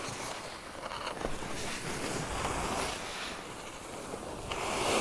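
Skis scraping and carving over groomed snow through turns, with wind rushing over the microphone; the scraping swells twice as the turns load up.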